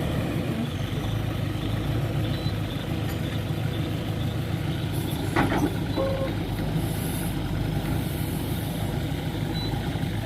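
Heavy diesel engine running steadily, with one sharp knock about five seconds in.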